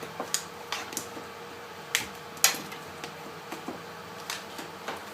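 Irregular sharp clicks and taps of a screwdriver and metal parts as a MacBook Pro's display hinge is worked loose from the unibody case, the loudest about two and a half seconds in.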